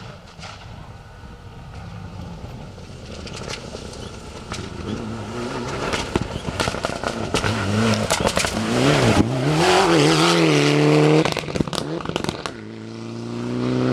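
Mitsubishi Lancer Evolution IX rally car at full throttle, its turbocharged four-cylinder engine note rising and falling through gear changes, with sharp crackling throughout, growing louder as it approaches and loudest about ten seconds in. Near the end the revs climb steadily again.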